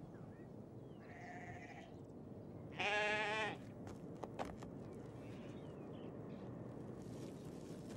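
A young white-faced Hereford-type calf bleats once about three seconds in, a short, wavering call. A few light knocks follow just after it.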